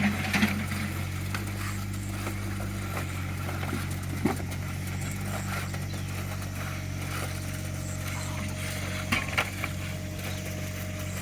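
Small Caterpillar excavator's diesel engine running steadily while digging, with a few sharp knocks and clanks. A faint steady whine joins about halfway through.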